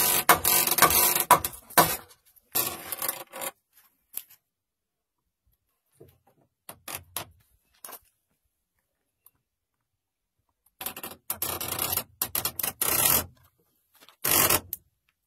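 Wood being worked with hand tools: short scraping strokes in clusters, with a few light clicks and a long pause between the clusters.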